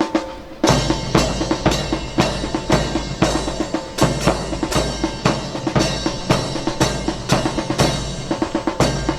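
Snare and bass drums playing a steady, fast marching drum cadence, which starts abruptly about half a second in.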